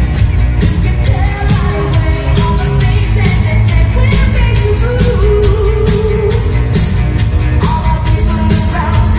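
Loud DJ-set dance music over a club sound system, with a steady kick-drum beat, heavy bass and a melody line on top.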